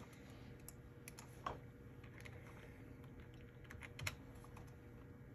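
A few scattered computer keyboard keystrokes, single taps spaced a second or more apart, faint over a steady low hum.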